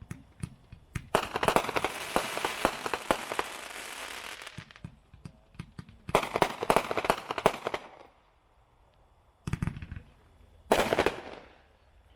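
World Class Demon Eyes consumer firework cake firing in volleys of rapid, dense crackling pops. The longest volley starts about a second in and runs for three to four seconds, then shorter volleys follow with pauses between.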